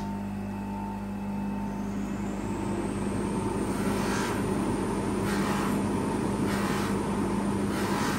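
Bench polishing motor running steadily with a cotton buffing mop spinning, a constant hum under a faint high whine that rises about two seconds in and then holds. Four times from about four seconds in, a plexi watch crystal pressed against the mop adds a short brushing hiss.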